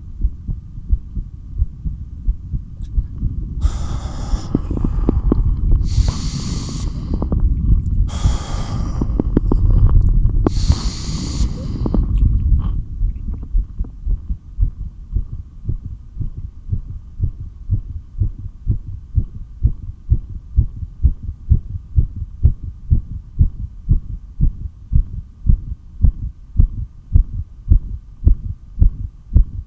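Heartbeat heard through a stethoscope, a steady run of low pounding beats. A few seconds in, four rushing breath sounds, in and out, pass over it within about eight seconds: the breaths taken between long breath-holds. Then the heartbeat goes on alone, its beats growing louder toward the end.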